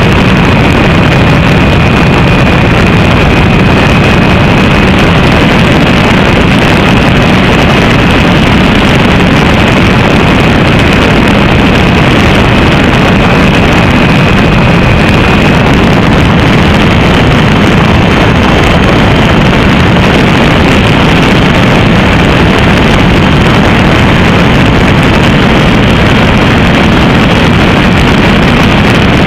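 FPV quadcopter's electric motors and propellers running steadily in flight, loud and constant, with wind on the onboard microphone. A thin whine holds steady and steps up slightly in pitch about halfway through.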